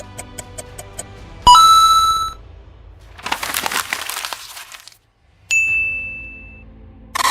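A run of separate short sound effects: fast even ticking, a sudden hit with a ringing tone about a second and a half in, a burst of crackling, then a sharp ping that fades away.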